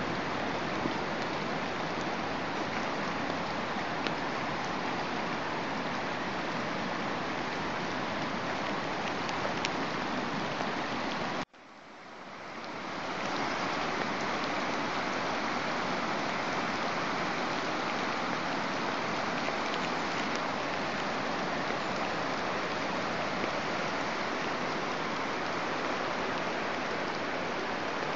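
The River Tees in flood, its swollen water rushing steadily. The sound cuts out abruptly about eleven seconds in and swells back over a second or two.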